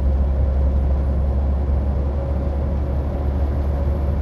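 Steady low drone of a truck driving along, heard inside the cab, with a faint steady hum and tyre hiss from the wet asphalt.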